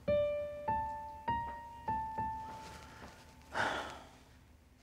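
Background score: five slow piano notes struck one after another, each ringing and fading away. About three and a half seconds in comes a brief breathy rush of noise.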